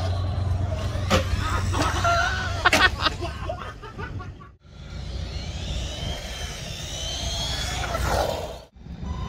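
Radio-controlled model cars running on asphalt, their motors giving high whines that rise and fall in pitch, with a few sharp clicks. The sound cuts off abruptly twice.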